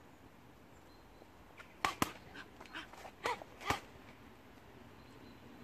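Boxing gloves striking hand-held pads in a quick combination: about six short smacks between two and four seconds in, the first two loudest.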